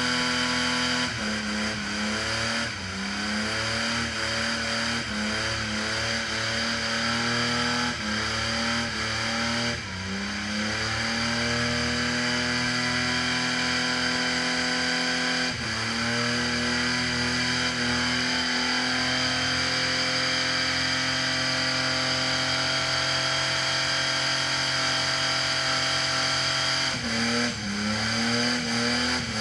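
Car engine held at high, steady revs, its pitch dropping and climbing back up several times.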